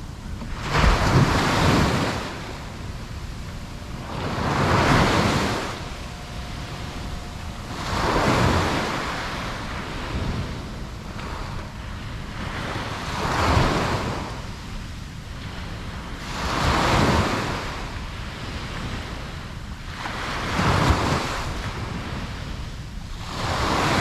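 Ocean waves breaking on a beach, a swell of surf hiss about every four seconds that rises, crests and washes back, over a low constant rumble. Some wind noise on the microphone.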